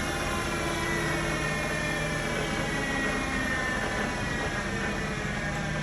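Spindle of a Trak DPM5 CNC vertical milling machine running at about 3,200 RPM: a steady motor hum with a high whine that sinks slightly in pitch.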